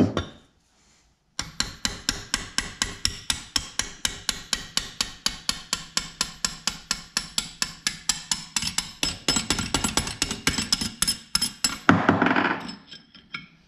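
Hammer striking a steel quarter-inch extension in quick, even taps, about four or five a second, driving a piston wrist pin out of a Subaru short block; each hit is a sharp metallic knock, and the tapping stops about twelve seconds in.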